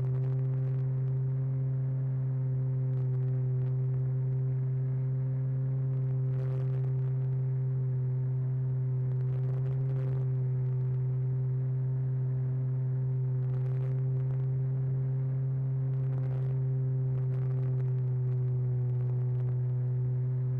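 RC model airplane's motor and propeller heard from its onboard camera in cruise flight: a steady droning hum holding one pitch, with a few faint ticks.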